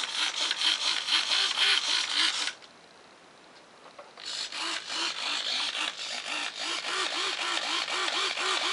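Small RC servos whirring back and forth in two bursts, with a quick rattling rhythm and a pitch that rises and falls over and over. The first burst lasts about two and a half seconds; the second starts about four seconds in.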